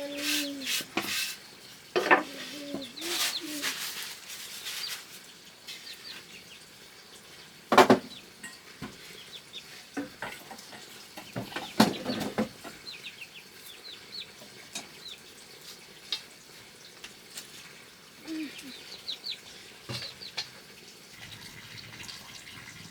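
Dough frying in hot oil with a soft sizzle, and a few sharp knocks of cooking utensils, loudest about 8 and 12 seconds in. Chickens cluck now and then.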